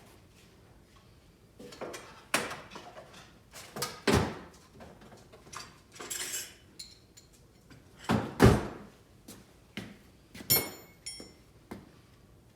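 Metal tools and lathe parts being handled on a bench: irregular knocks and clanks, with a scrape about six seconds in. The loudest knock comes about eight and a half seconds in, and a short ringing metallic clink follows about two seconds later.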